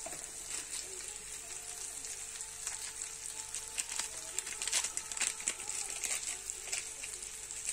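Onion-tomato masala with ground spices frying gently in oil in an aluminium kadai: a steady low sizzle scattered with sharp crackles and pops, over a faint steady hum.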